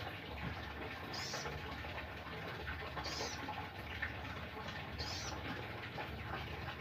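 Male sogon bird giving a short, high-pitched call three times, about every two seconds, over a steady background hiss.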